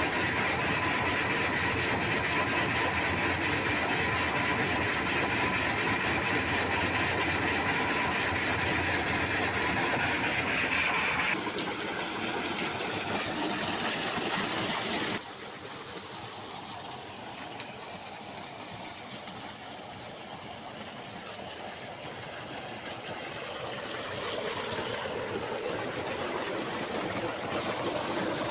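Solar tubewell pump running. At first there is a steady hum with a high electrical whine near the pump's inverter drive. After abrupt cuts at about eleven and fifteen seconds in, water gushes from the outlet pipe into a tank as a steady rush, growing louder near the end.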